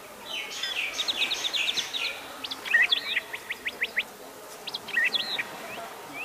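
Small birds chirping in quick runs of short, high notes, with a louder burst of calls about halfway through and again near the end.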